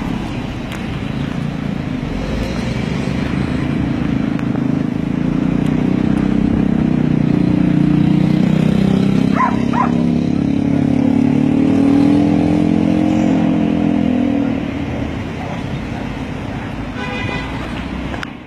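Motor vehicle engine noise swelling and fading, loudest around the middle, with two short sharp sounds a little after halfway.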